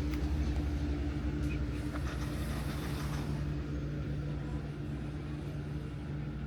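Steady low hum and rumble of a running motor vehicle engine, with a few light clicks in the first few seconds; it grows slightly quieter toward the end.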